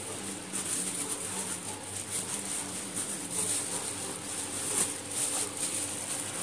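Plastic bag rustling and crinkling on and off as hands work chicken pieces into a masala marinade inside it.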